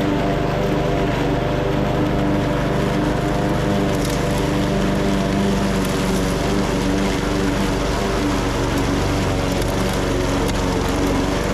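Small petrol lawn-mower engine of a radio-controlled mower running steadily at constant speed.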